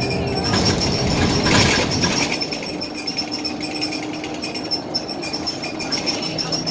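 Interior of a Scania L94UB single-decker bus on the move: steady engine and road noise with interior panels and fittings rattling. There is a brief hiss about a second and a half in, and the engine hum changes pitch partway through.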